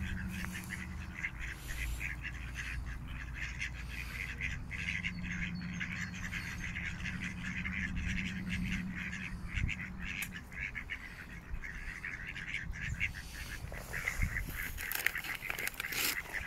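A flock of mallard ducks quacking and chattering, many short calls in quick succession, over a low steady rumble.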